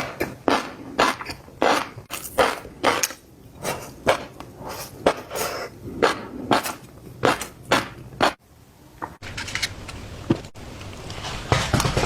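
Close-miked chewing and crunching of food, a chew or bite roughly every half second, broken by a couple of abrupt cuts partway through.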